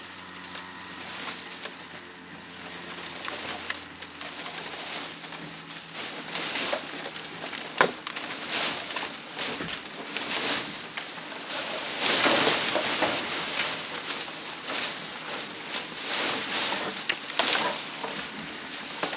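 Pecan tree branches cracking, snapping and scraping against a shed roof as a winch drags them up and off, with a dense crackle of twigs and dry leaves and the loudest burst of snapping about twelve seconds in. A faint low hum stops about four seconds in.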